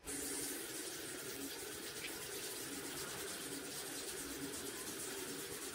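Bathroom sink faucet running in a steady stream into the basin, with water splashing over hands that are rinsing a small candle jar under it.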